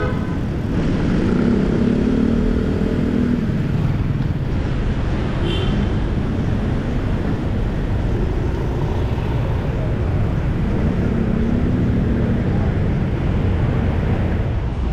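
Steady wind rushing over the microphone of a moving bicycle, mixed with city traffic. Nearby car and motorcycle engines hum, swelling around two seconds in and again around eleven seconds.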